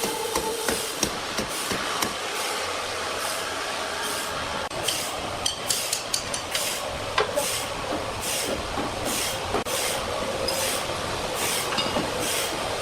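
Sawmill machinery running: a steady mechanical din with a regular hissing clack a little under twice a second. It cuts off suddenly at the end.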